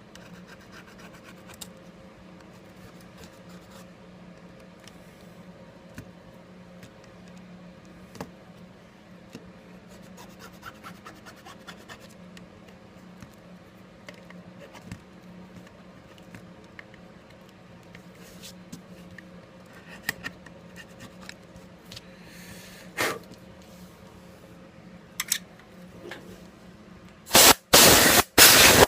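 Small tool scraping and picking at a smartphone's frame to clear broken glass fragments and leftover adhesive: faint scratching and light ticks over a steady low hum. Near the end come a few much louder noisy bursts.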